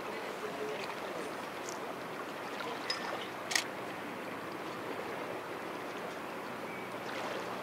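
Steady wash of sea water lapping at a harbour pier, with two brief sharp sounds about three seconds in.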